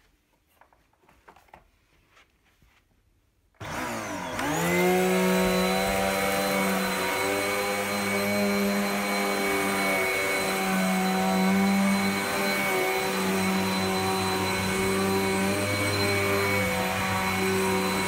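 Vax Dynamo Power Pet bagless upright vacuum cleaner switched on about three and a half seconds in, after a few faint clicks. Its motor spins up with a rising whine, then runs steadily on carpet, its pitch shifting up and down every couple of seconds as it is pushed.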